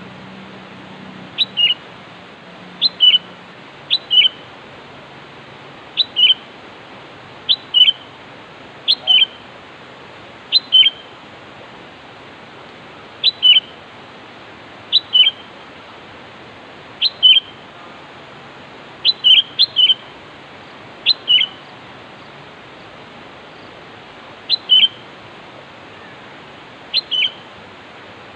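Sooty-headed bulbul (kutilang) calling: a short two-note call, a higher note dropping to a lower one, repeated every second or two with a few longer pauses, over a steady hiss. This is the calling the bird uses to challenge rivals, used here to lure rival bulbuls.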